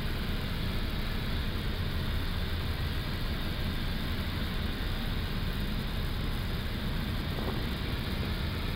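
Steady cockpit noise inside an Airbus A330-200 in flight on approach: an even rush of airflow with a low hum underneath.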